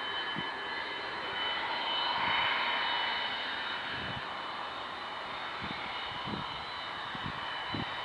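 Avro Vulcan's four Rolls-Royce Olympus turbojets running at the start of its takeoff: a steady jet rumble with a high whine, swelling briefly about two seconds in. A few soft low thumps sound toward the end.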